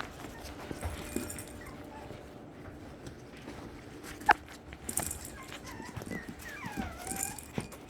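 Teacup Yorkie puppies whimpering, with thin, high squeaks that bend up and down, most of them in the second half. There are small scattered clicks and one sharp tap about halfway through.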